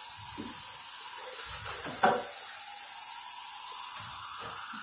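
Kitchen tap running steadily, an even hiss of water, with a short knock about two seconds in.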